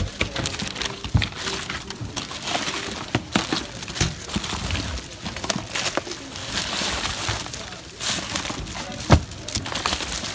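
Plastic bags and packaging crinkling and rustling as hands rummage through a bin of mixed merchandise, with scattered knocks of boxes and items being shifted, the sharpest about nine seconds in.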